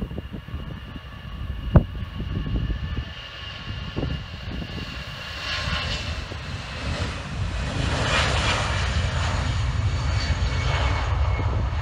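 Airbus A320-200's twin jet engines at takeoff thrust during the takeoff roll: a steady whine over a low rumble, growing louder about six seconds in as the airliner draws closer. A single sharp tap about two seconds in.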